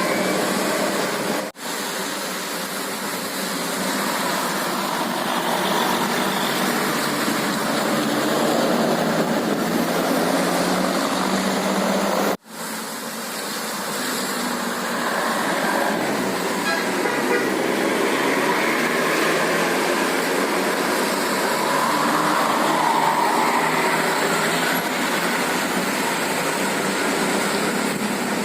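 Indonesian tour buses passing with their basuri musical horns sounding over engine and road noise. The sound drops out sharply twice, about a second and a half in and again around twelve seconds.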